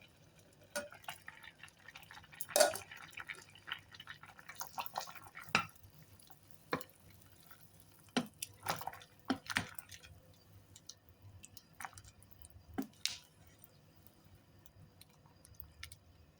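Small covered pot of herbal soup simmering on a low flame: irregular soft pops and ticks of liquid bubbling, one louder pop about two and a half seconds in, growing sparser near the end.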